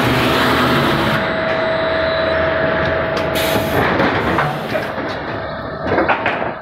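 Machinery of a log veneer peeling line running: a steady hum with a constant whine from the electric motors and gear drives, under broad mechanical noise, with a few knocks around the middle and near the end.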